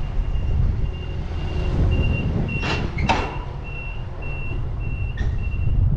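Forklift warning beeper sounding a steady high beep about twice a second over a low rumble. Two short loud noises come about three seconds in.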